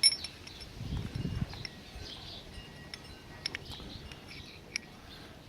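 Metal parts of a vintage brass padlock being handled: a sharp ringing clink at the start, then a few small scattered clicks and taps.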